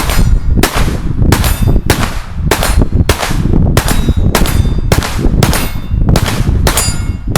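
Rapid gunfire at a shooting range: a steady string of about fourteen shots, roughly two a second.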